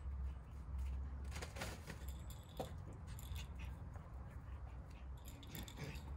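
Quiet outdoor ambience: a steady low rumble with faint scattered rustles and light clicks from puppies moving about and playing on dry ground.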